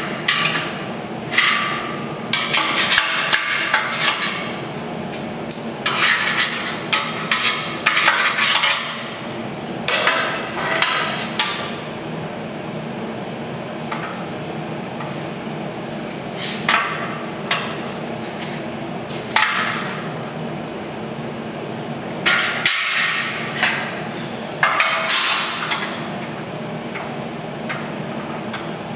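Welder tack-welding a steel-tube gantry: a run of short arc bursts, each under about two seconds, coming in clusters with pauses between, over a steady low hum.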